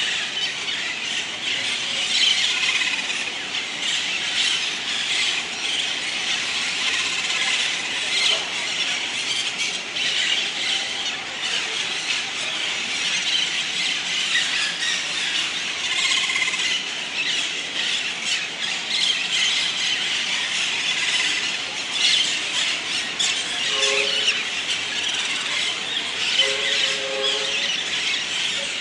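A flock of parakeets calling at once at their evening roost tree: a dense, unbroken chatter of many overlapping high-pitched calls.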